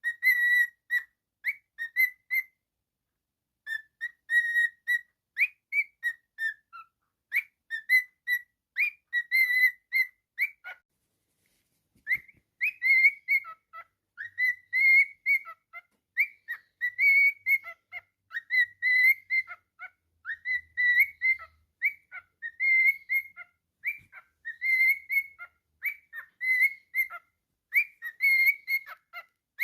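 Cockatiel whistling a tune: a long run of short, bright whistled notes, with a short break about three seconds in and a longer one around eleven seconds.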